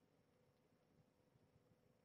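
Near silence: faint room tone with a thin steady hum.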